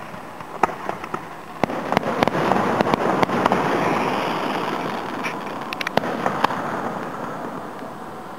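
Aerial firework shells bursting, heard from about a quarter mile away: a string of sharp bangs and cracks over a continuous rumble that swells in the middle and fades near the end.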